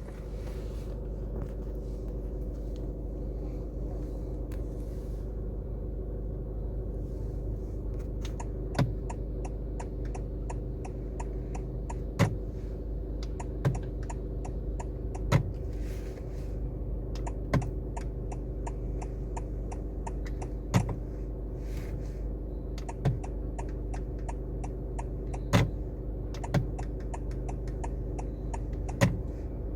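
Honda City steering crackling and clicking while the wheel is turned to the right with the indicator on: small clicks come often, with louder cracks every one to three seconds. A steady engine hum sounds through the cabin underneath.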